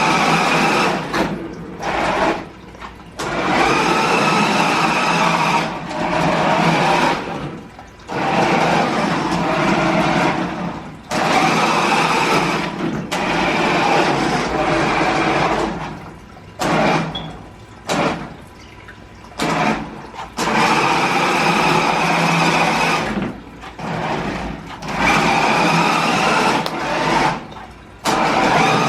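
Four-wheel-drive toy RC drift car's small electric motor and gears whining in repeated bursts a second or few long, cutting off between them as the throttle is worked on and off.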